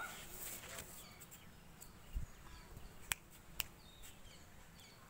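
Faint birds chirping in the background over low outdoor ambience, with a few sharp ticks near the middle.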